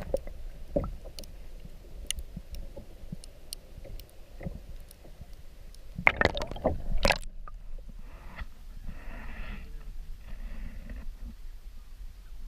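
Water sloshing, dripping and splashing around a kayak, with small knocks and a louder splash about six seconds in that stops abruptly; the sound is duller afterwards.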